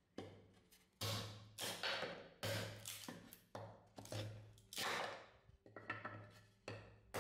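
Restored butcher cleaver-axe chopping a stiff dark sheet held against a wooden block: a quick series of sharp chopping strikes, roughly two a second, each ringing out briefly.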